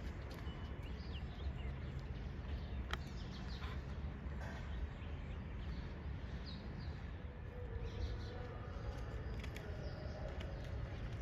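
Outdoor ambience: a steady low rumble with faint, scattered bird chirps and a few small clicks.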